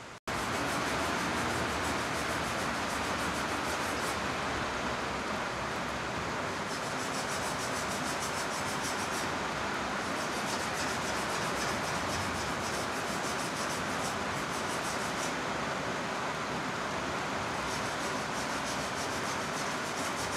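Heavy tropical downpour falling steadily, a dense even hiss of rain on the ground and roofs, starting after a brief dropout at the very beginning.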